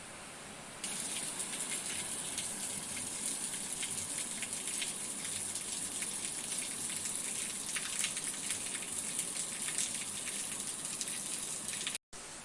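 Rain falling: a dense, steady hiss full of small drop ticks that comes in suddenly louder about a second in. Near the end it cuts out for an instant and a quieter, smoother hiss takes over.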